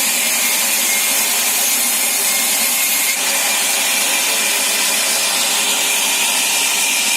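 Sawmill saw cutting through wood, a steady loud run with a high, even whine.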